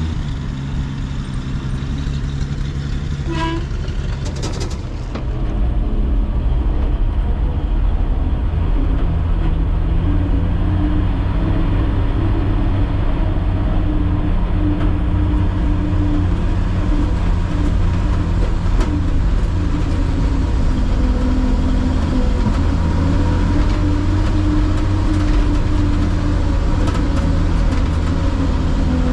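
Engine of an old Chevrolet Maple Leaf truck running steadily, getting louder about five seconds in and holding there. A brief high-pitched tone sounds about three seconds in.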